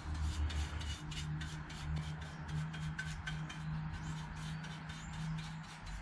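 Paintbrush bristles brushing rust-converter liquid onto a rusted metal exhaust heat shield: quick scratchy strokes, several a second, over a steady low hum.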